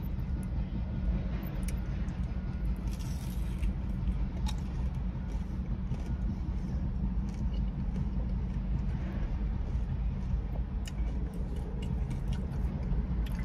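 Steady low rumble inside a parked car, with faint, scattered crunches and clicks of someone chewing food.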